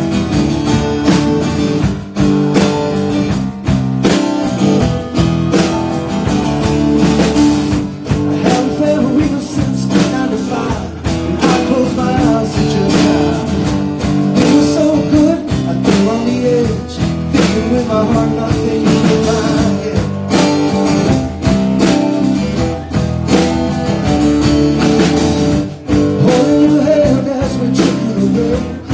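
Live band playing a song: strummed acoustic guitar, drum kit and keyboard, with a man singing lead into a microphone.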